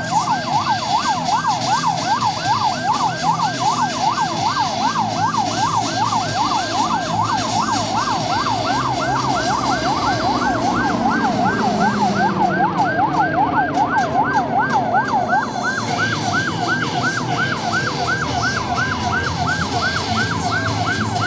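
A siren yelping rapidly up and down, about three to four sweeps a second, without a break, over a steady rumble of engine noise in which one lower pitch slides downward about halfway through, as of an aircraft passing.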